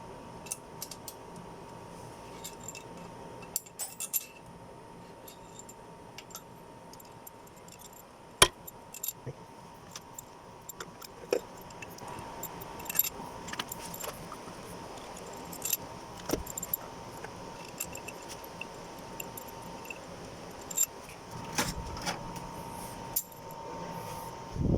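Light metallic clinks and clicks of steel cylinder-head bolts and washers being handled and set into an engine head, irregular throughout, with one sharp click about eight seconds in.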